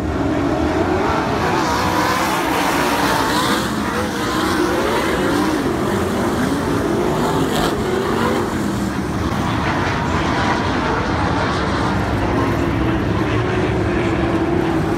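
A field of winged sprint cars racing on a dirt oval: several engines running at once, loud and steady, their pitch rising and falling as cars pass.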